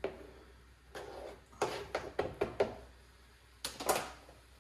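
Kitchen handling sounds: a utensil scraping and knocking against a pan as ingredients are stirred together, in short strokes that come in a cluster a couple of seconds in and again near the end.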